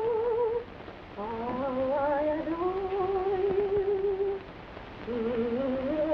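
A woman's voice humming a slow wordless tune in long held notes with a wide vibrato, sliding up from note to note. It breaks off briefly about half a second in and again a little after four seconds in.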